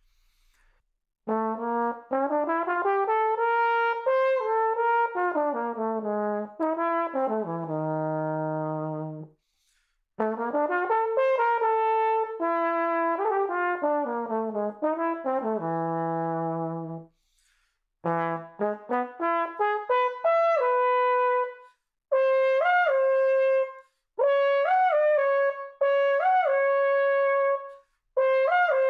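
Small-bore King 3B tenor trombone played with its stock King 7C mouthpiece: flowing runs that climb and fall, each ending on a long held low note, then shorter repeated higher notes with quick upward flicks, with brief breath pauses between phrases.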